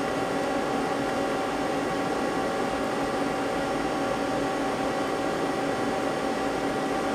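Steady hum and hiss of powered-up machine-shop equipment idling, with several steady whining tones over an even rushing noise and no change throughout.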